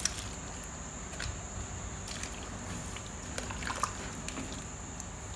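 Faint sloshing of thick soup and a few soft clicks as pieces of fish are put into the pot of native soup, over steady background noise.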